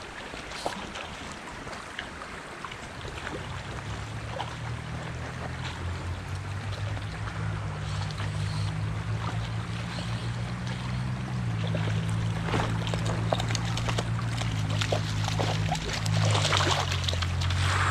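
River water running and splashing as a hooked brook trout is played close to the surface, with sharper splashes near the end as the fish thrashes. Soft background music with low sustained notes comes in about three seconds in.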